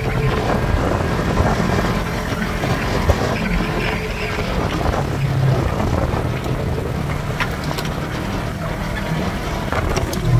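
Side-by-side UTV engine running steadily at speed, mixed with tyre noise on the dirt track and wind across the open cab.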